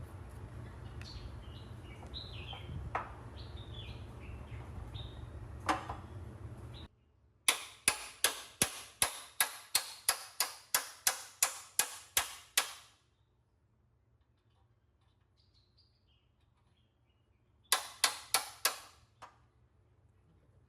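Hammer blows on metal: a run of about fifteen sharp strikes, roughly three a second, each ringing briefly, then a pause and about five more near the end. Before them, birds chirp over a low steady hum.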